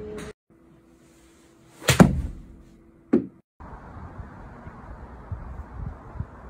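A golf club striking a ball: one sharp, loud crack about two seconds in, then a shorter knock about a second later, followed by steady outdoor noise.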